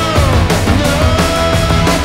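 Loud rock music with a steady drum beat and bending guitar lines.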